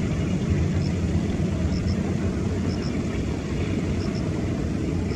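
Distant jet engines of an Airbus A321 at takeoff thrust: a steady low rumble.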